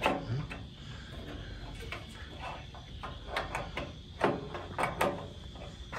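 Scattered metal clicks and knocks of a wrench turning the nut that holds an ignition switch in a steel tractor dash panel. The two loudest knocks come about four and five seconds in.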